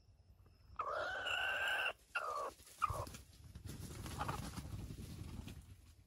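Red junglefowl rooster crowing. A loud call comes about a second in and holds for about a second, then breaks into two short falling notes. A few seconds of low, rustling noise follow.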